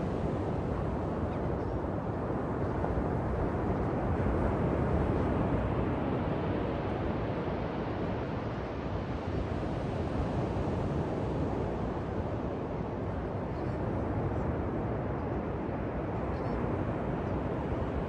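Atlantic ocean surf washing onto the beach, a steady rushing noise that swells a little about five seconds in.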